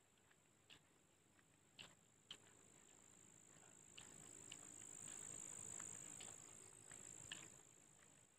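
Faint steady high-pitched insect chorus, swelling in the middle and easing off near the end, with scattered soft clicks.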